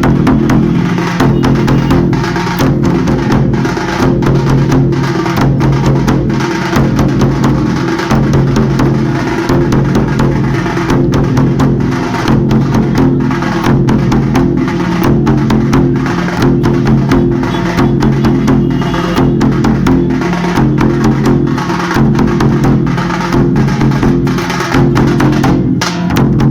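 Traditional Holi drums, halgi frame drums with the big jaggalige drum, beaten together in a loud, fast, steady rhythm of rapid strokes.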